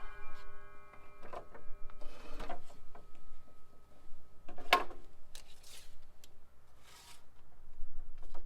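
A power saw's blade tone lingers faintly for the first couple of seconds after the cut, then scattered knocks, clicks and rustles of wood and tools being handled, with one sharper knock a little past halfway.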